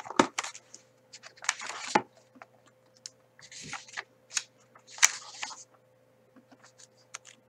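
Paper pages of a hardcover book being turned and riffled by hand: a series of brief rustling swishes with light taps, pausing near the end.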